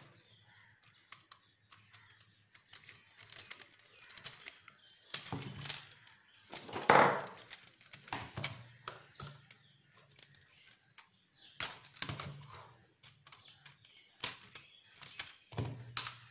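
Scattered clicks, taps and rustles of hands and tools working a plastic switchboard, a bare copper wire being looped across the switches' bottom terminals with a wire stripper and screwdriver. One louder rustle lasts about a second near the middle.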